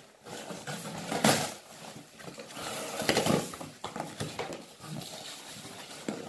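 Cardboard shipping box being torn and pulled open: rough ripping and scraping of cardboard, loudest about a second in and again around three seconds in.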